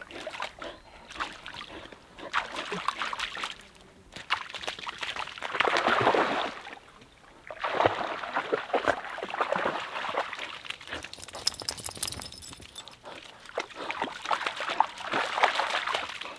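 A Blue Heeler dog wading and splashing in shallow lake water at the shore, the water sloshing and splashing in repeated bursts.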